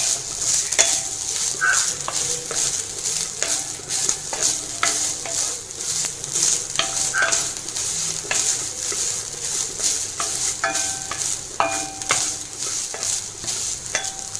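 Coconut sizzling in ghee in a hot pan as it is roasted and stirred, the stirring utensil scraping and clinking against the pan again and again, a few clinks ringing briefly.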